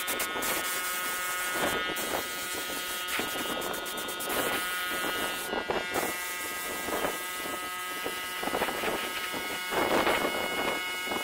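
Compressed-air paint spray gun hissing in repeated bursts as it sprays primer, over a steady electric buzz.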